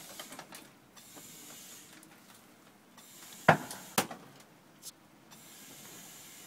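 Two sharp knocks about half a second apart, the first the louder, followed by a fainter click about a second later.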